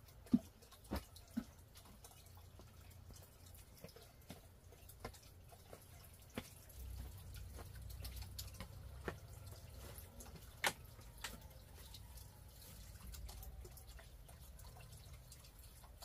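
Faint, irregular dripping of water: about a dozen single drops at uneven intervals, the strongest about half a second in and near eleven seconds. A low rumble sits beneath them through the middle.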